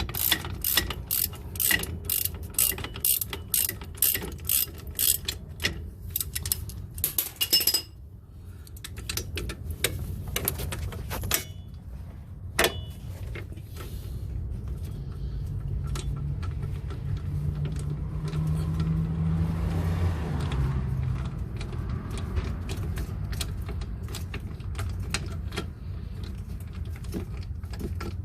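Ratchet wrench clicking in a steady run, about three clicks a second, as it works a tight hub-assembly mounting bolt loose. After about eight seconds it gives way to fainter, scattered clicks over a low steady hum.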